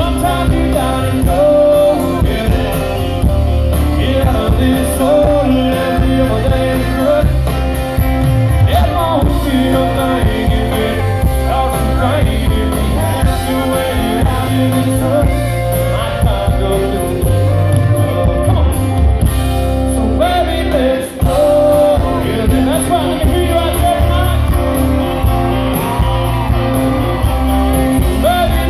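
Live country song: a male singer with a full band of electric guitars and drums playing on through, loud and steady.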